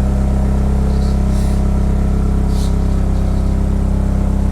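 Engine running steadily at a constant speed, with a few short faint hisses over it.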